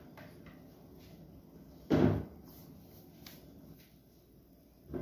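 Kitchen things being handled at the stove: one solid knock about two seconds in, a few light clicks, and a smaller knock near the end.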